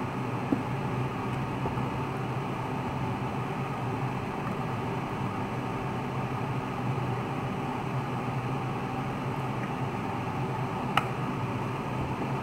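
Steady hiss of a frying pan of salted water heating on the stove, not yet at the boil, with a single sharp click about eleven seconds in.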